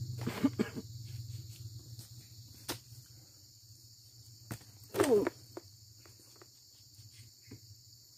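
Insects droning steadily and high-pitched in an oil palm plantation, with a few sharp knocks and thuds as fresh fruit bunches are loaded onto a motorbike's wooden rack. A short voice sound with sliding pitch comes about five seconds in.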